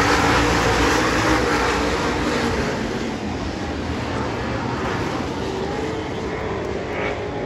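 A pack of dirt late model race cars running past at racing speed, their engines loud at first and then fading somewhat as the field moves on around the track.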